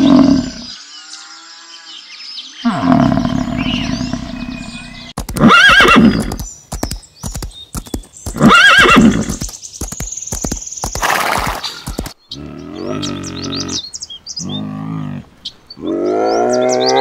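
A horse whinnying, two loud high calls a few seconds apart. Lower, drawn-out animal calls follow near the end.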